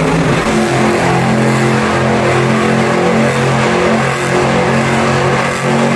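Monster truck engine running at a steady, fairly constant pitch as the truck moves slowly across the arena floor, with a wide wash of arena noise under it.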